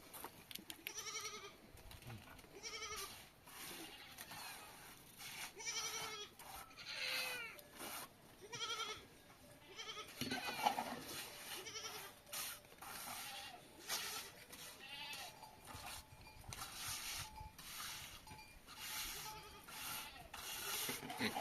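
Goats bleating over and over: many short wavering calls, one after another, with scattered light knocks between them.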